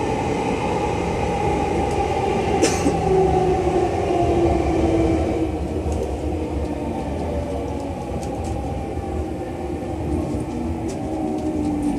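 209 series 1000-subseries electric commuter train heard from inside the car: the inverter-driven traction motors whine in several tones that slowly fall in pitch as the train slows into the station, over a steady rumble of wheels on rail. A sharp knock comes about a quarter of the way in.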